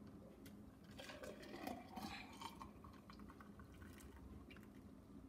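Carrot-apple juice being poured into a clear plastic cup: faint pouring and splashing for about a second and a half, starting about a second in, with a few light clicks.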